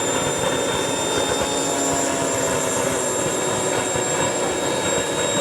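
Radio-controlled model airplane engine running steadily, a constant high whine over a noisy hum.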